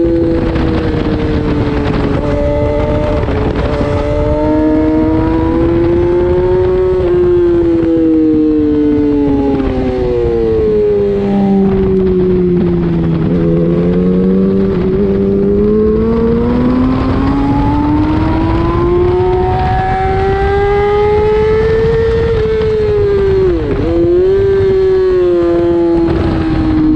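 Racing motorcycle engine heard from onboard at speed, over steady wind rush. The engine note drops as the bike brakes for a slow corner about halfway through, then climbs steadily under acceleration, with a quick dip at a gear change near the end.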